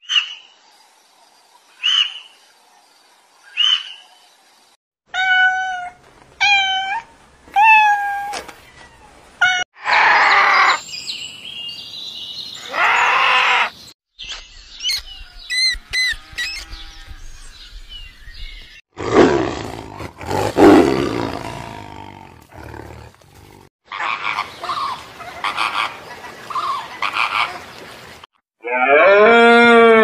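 A run of calls from several different animals, one short clip after another with abrupt cuts between them. First come three short high calls about two seconds apart, then a quick series of falling calls, then longer, louder calls.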